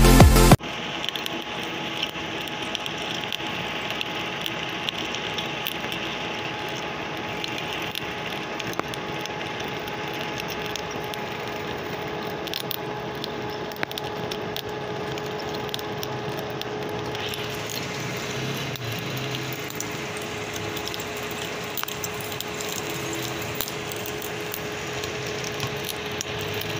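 Intro music cuts off about half a second in, then a lathe runs steadily while its tool cuts a worm thread on the spinning workpiece: an even machine sound with a constant hum and occasional light ticks.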